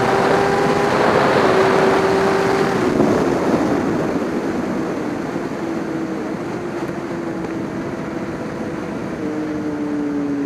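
Racing motorcycle engine running hard at high revs under wind and spray noise on a wet track. The note drops about three seconds in and falls again near the end as the bike slows.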